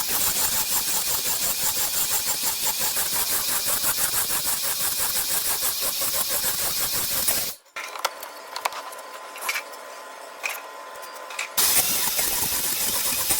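Motorised saw cutting wood with a fast, even pulsing. About seven and a half seconds in it stops abruptly, leaving only faint clicks for about four seconds, then starts again.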